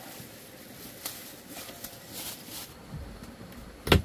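Hammer striking a nail into wood: faint knocks and rustling, then one sharp, loud strike near the end.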